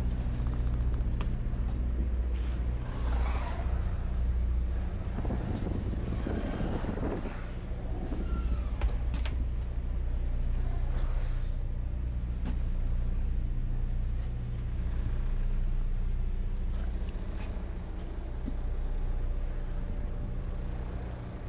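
Small passenger ferry's engine running with a steady low hum, heard from the open deck, with patches of rushing noise over it now and then.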